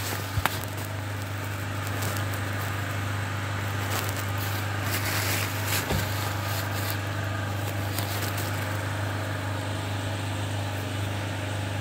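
Diesel engine of a Ponsse Ergo forest harvester idling steadily while the machine stands still, with a few light clicks.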